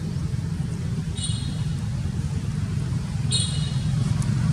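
Steady low rumble of a motor vehicle's engine running nearby, with two brief high squeaks, one about a second in and one near three seconds in.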